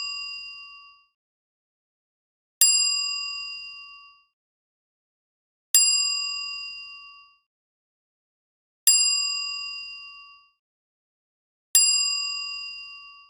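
A bright bell-like ding sound effect struck four times, about every three seconds. Each ding rings with high overtones and fades out over about a second and a half.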